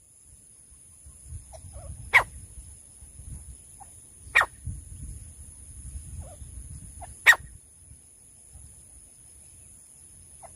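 Three single short, sharp animal calls a few seconds apart, over a low rumbling noise and a steady high hiss.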